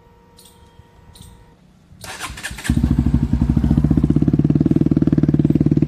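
Bajaj Pulsar NS single-cylinder engine cold-started through a newly fitted Akrapovic full-system exhaust. The starter cranks briefly about two seconds in, then the engine catches and settles into a loud, steady idle with a fast pulsing beat.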